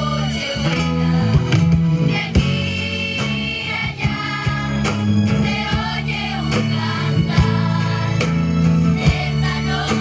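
A group of voices singing a song together, with guitar accompaniment, a steady bass and a regular beat.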